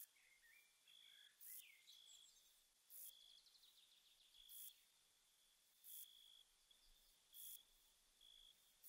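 Bush-cricket song: short, hissy chirps about every one and a half seconds, interleaved with brief steady high notes. Faint bird-like twitters in the first two seconds.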